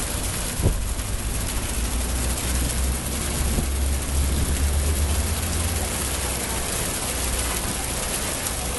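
Steady outdoor noise with a low rumble that swells through the middle and eases off, and a single click just under a second in.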